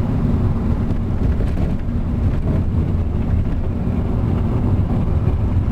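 Steady low rumble of road and engine noise inside a moving Chevrolet Malibu on a back road.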